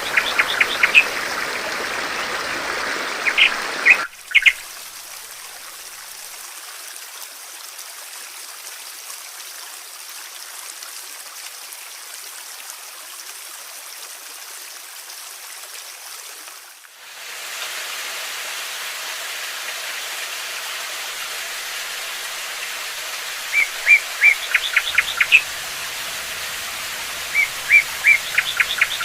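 Songbirds chirping in short runs of quick notes over a steady rush of flowing water. The chirps come in the first few seconds and again in the last five or so; the water sound changes abruptly about 4 seconds in and again about 17 seconds in, as one recording gives way to another.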